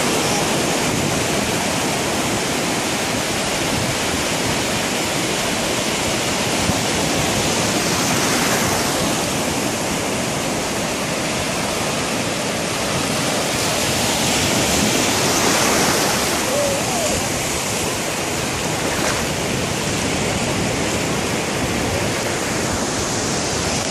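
Ocean surf breaking and washing through shallow water: a loud, steady rushing that swells a few times as waves come in.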